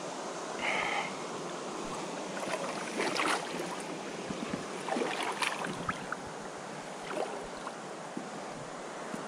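Water splashing and sloshing several times in a shallow river, over a steady rush of flowing water.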